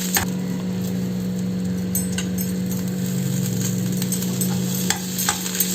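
Spices and curry leaves sautéing in oil in a kadai, with a few short clinks of the spatula against the pan over a steady low hum.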